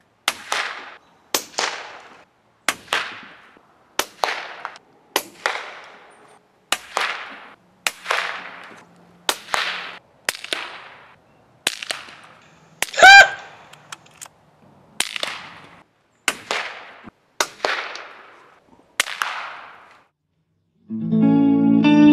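Music track: a run of sharp cracks at an even beat, about one every second and a half, each fading quickly, with one louder ringing hit about halfway. Distorted electric guitar comes in near the end.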